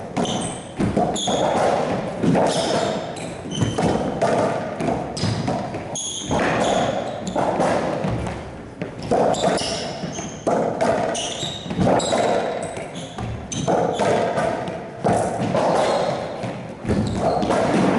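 Racquetball rally: the hollow rubber ball cracking off racquet strings and smacking the court walls and floor in quick succession, echoing around the enclosed court, with sneakers squeaking on the floor between shots.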